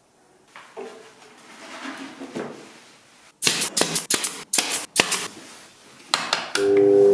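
Hand saw strokes through plywood, then about ten sharp shots in quick succession from a nail gun driving fasteners into a plywood box. Near the end a bench disc sander's motor starts and runs with a steady hum.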